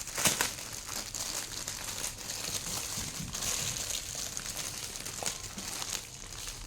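Crinkling and rustling of packaging as a Rubik's cube mat is unwrapped and handled, in irregular crackles with a sharper one just after the start.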